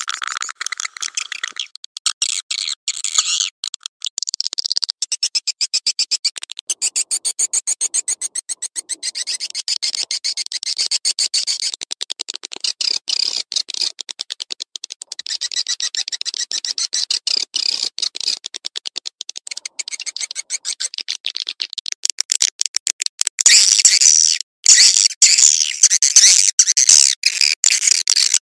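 Swiftlet call sound (suara panggil) used to lure swiftlets: fast high-pitched chirping and clicking twitters, growing louder about three quarters of the way through.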